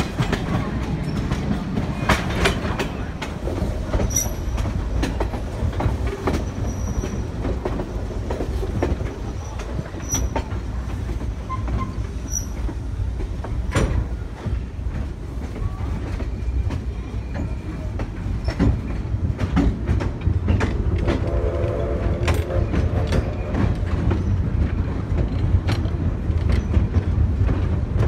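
Riding aboard a moving passenger train: a steady low rumble with wheels clicking over rail joints and a few short, high wheel squeals. A brief sustained tone sounds about twenty seconds in.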